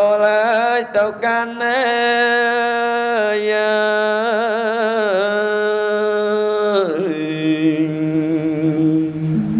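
A Buddhist monk's solo smot, Khmer funeral chanting: one male voice sings long, drawn-out melismatic notes with a wavering vibrato, stepping between a few pitches and settling onto a lower held note about seven seconds in.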